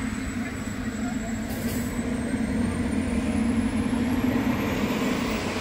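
Electric ducted-fan RC model jet running, a thin high whine over a steady rushing noise; the whine climbs steeply in pitch from about two seconds in as the fan is throttled up.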